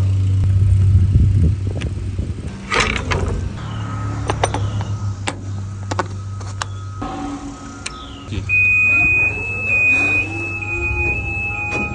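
Electric scissor lift running, its motor giving a steady low hum that stops and restarts, with sharp clicks and clunks from the machine. Near the end a steady high-pitched tone sounds along with the hum.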